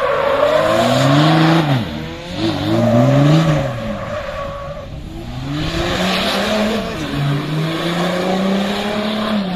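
Rally car engine revving, its pitch rising and falling twice in quick swells, then climbing and holding steady near the end, with tyre noise underneath.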